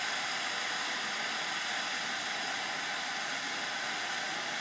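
SMD rework station's hot-air handpiece blowing steadily through a straight nozzle at 370 °C, a constant airy hiss.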